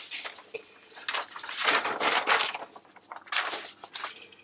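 Fanfold continuous dot-matrix printer paper being handled and rustled, in two main bursts.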